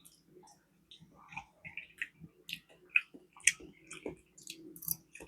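Close-miked mouth sounds of a person eating: wet chewing with irregular lip smacks and clicks, several a second.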